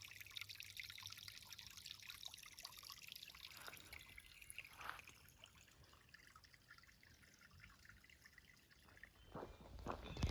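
Faint trickling water. A few footsteps on the trail start near the end.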